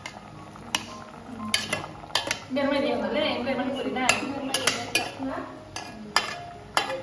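A metal ladle stirring vegetables in broth in an aluminium pot, clinking and scraping against the pot's rim and sides in repeated sharp knocks.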